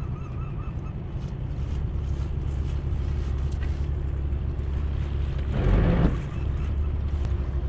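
Tow boat's engine running with a steady low hum while it tows the houseboat. A brief louder burst of noise comes about six seconds in.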